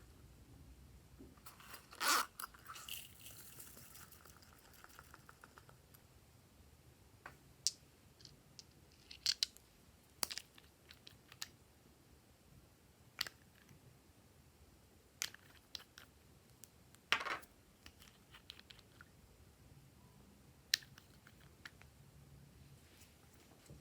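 Glossy slime being squished and pulled by hand, giving scattered sticky clicks and small pops. There is a louder squelch about two seconds in and a quick crackling run of clicks just after it.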